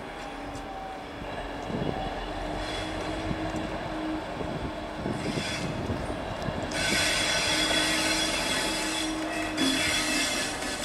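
Class 60 diesel locomotive 60062 running light towards the listener at low speed, its engine giving a steady hum with a held tone. About seven seconds in, a louder hissing rush of wheel and rail noise comes in as it draws closer.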